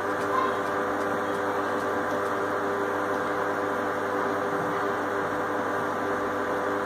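Induction cooktop running under a pan of dal, giving a steady fan whirr with a hum of several tones.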